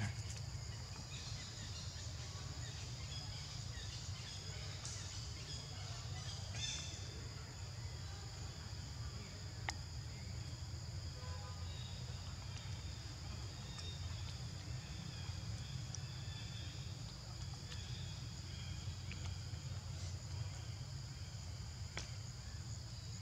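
Steady insect drone, a constant high buzz, over a low steady rumble, with a few faint clicks scattered through.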